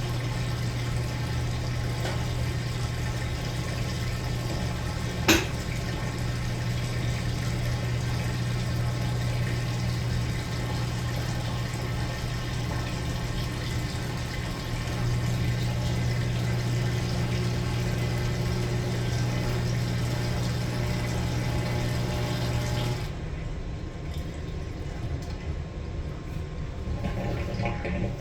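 Maytag Bravos top-load washer with water rushing into the tub over a steady low hum. There is a single sharp click about five seconds in. Near the end the hum and rush cut off abruptly, leaving quieter machine noise.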